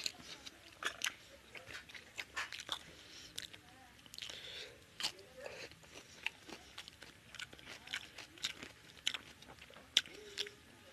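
Close-miked eating sounds: a person chewing rice and chicken curry with wet mouth smacks and clicks and some crunching, irregular throughout.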